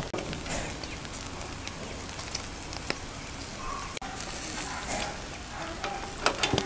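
Food sizzling as it cooks over a fire: a steady hiss with many scattered small crackles.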